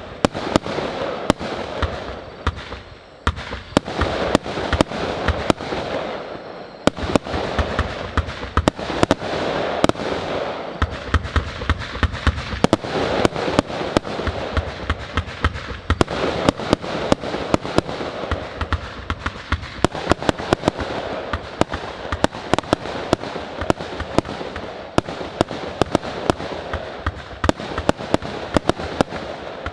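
Argento Pyroshow 2000-A Minerva, a 144-shot 25 mm compound fireworks cake, firing shot after shot. Sharp launch and burst reports come several times a second over a continuous hiss.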